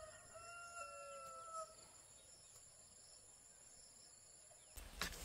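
A rooster crowing faintly: one long held call that drops a little in pitch and fades out about a second and a half in. After that there is near silence with a thin, steady high whine.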